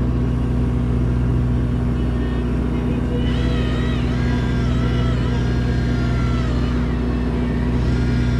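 A boat's motor running with a steady low hum. A wavering high tone joins about three seconds in and fades out a few seconds later.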